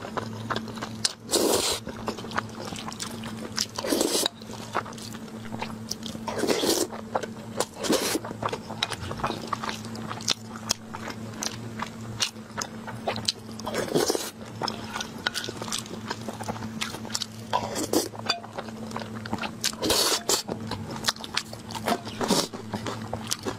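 Close-miked eating sounds: a person slurping and chewing spicy food, with loud wet slurps every few seconds and quieter mouth noises between. A faint steady low hum runs underneath.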